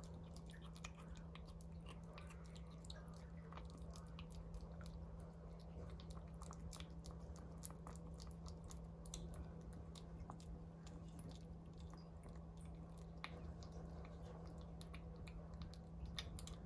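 Kitten chewing wet cat food chunks from a bowl: faint, quick, irregular eating clicks over a steady low hum.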